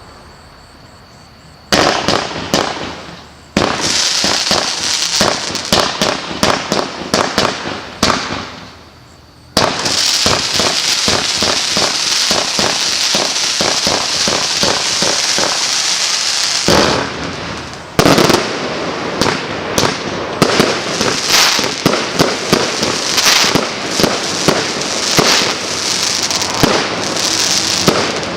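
Klasek 'King Of Fireworks' 223-shot firework cake firing: after a brief quiet it sets off rapid volleys of shots about two seconds in. A long stretch of dense crackling follows midway, then more quick shots.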